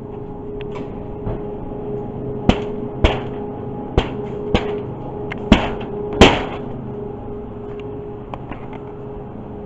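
A series of six sharp knocks, unevenly spaced half a second to a second apart, the loudest near the end, over a steady electrical hum.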